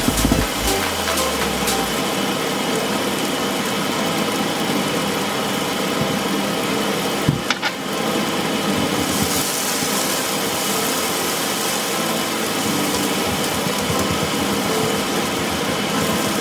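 Food frying in hot oil in a nonstick wok: a steady sizzle, with the spatula stirring now and then.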